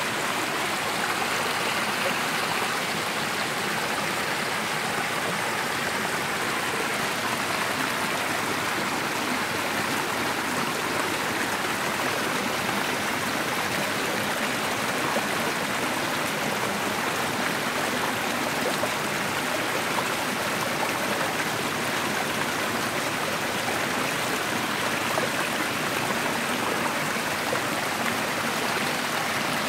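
Small mountain stream (Wildbach) rushing and splashing down a cascade of mossy rocks, filmed close to the water: a steady, unbroken rush of water.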